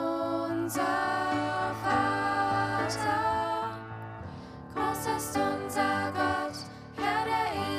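Three female voices singing a song together through microphones over an instrumental accompaniment with steady low notes; the sung phrases pause briefly about four seconds in and again near the end.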